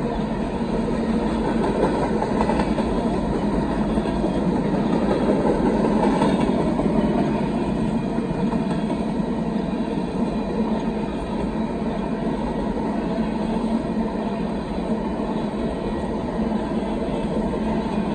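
Union Pacific freight train's covered grain hopper cars rolling past with steady wheel-on-rail noise.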